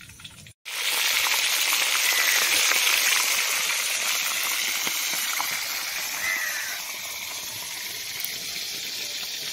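Rohu fish frying in hot oil: a steady sizzle full of fine crackling that starts suddenly about half a second in and eases off a little around seven seconds.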